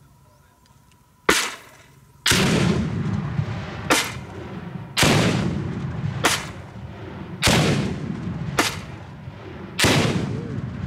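LG-440 40mm revolving grenade launcher firing four exploding rounds, roughly two and a half seconds apart. Each sharp launch is followed about a second later by a deeper, longer boom with a rolling tail as the grenade detonates downrange.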